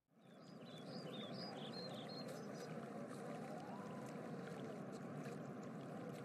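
Outdoor ambience fading in: a steady, even background noise with small birds chirping briefly during the first two or three seconds.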